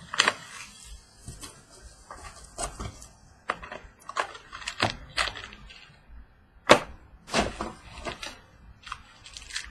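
Trading-card boxes and packs being handled and opened: scattered taps, clicks and crinkles of cardboard and wrapper, with one sharper snap about two-thirds of the way through.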